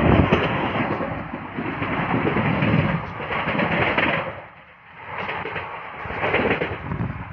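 Passenger train running at speed, heard from an open coach door: a steady rumble and rush of air. It eases for a moment about four and a half seconds in.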